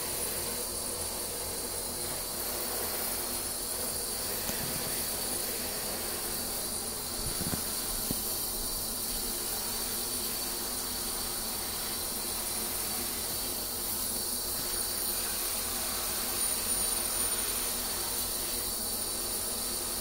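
Handheld shower head running, its spray pouring steadily into bathwater in a tub with a continuous hiss.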